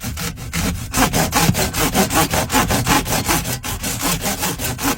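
Handsaw sawing with quick, regular back-and-forth strokes.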